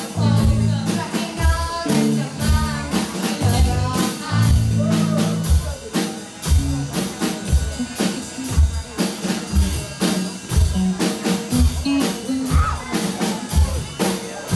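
Youth rock band playing live: drum kit, electric bass and electric guitars under a sung lead vocal. The singing drops out about halfway through while the drums and bass keep the beat.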